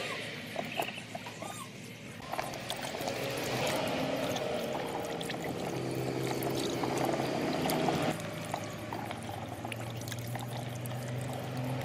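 Water sloshing and splashing in a plastic basin as hands wash peeled sweet potatoes, with many small knocks and clicks of the tubers against each other and the basin.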